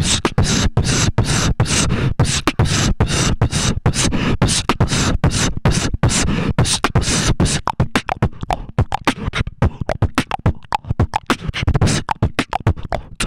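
Human beatboxing into a cupped handheld microphone: a fast, unbroken rhythm of mouth-made kick, snare and hi-hat sounds. From about eight seconds in, the strokes turn shorter and sharper, like a run of clicks.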